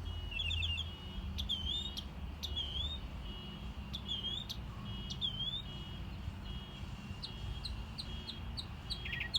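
A songbird singing, repeating each phrase several times before changing it. It starts with quick trills, moves to a string of swooping whistled notes about once a second, then gives short sharp notes near the end. A low steady hum runs underneath.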